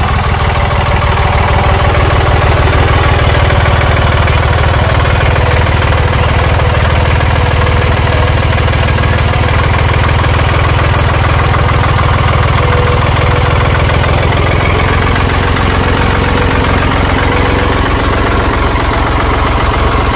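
Ford 4610 tractor's three-cylinder diesel engine running steadily at a constant speed, heard close up.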